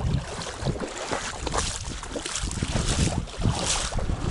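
Wind buffeting the microphone over rushing river water: a steady rushing noise with irregular louder gusts.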